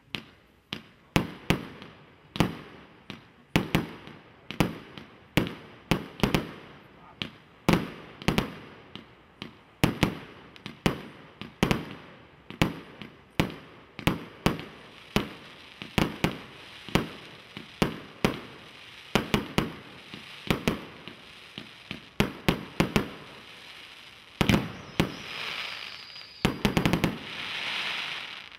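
TXB 401 'Blizzard' firework going off: a long run of sharp bangs, roughly one to three a second, each dying away quickly. Near the end comes a stretch of hissing crackle, and then it stops.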